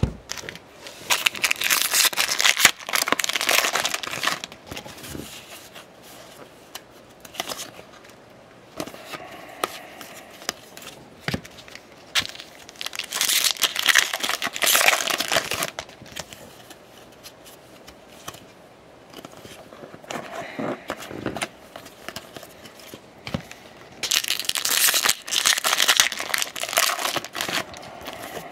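Foil wrappers of baseball card packs being torn open and crumpled, in three loud bursts of crinkling, with quieter handling of the cards between them.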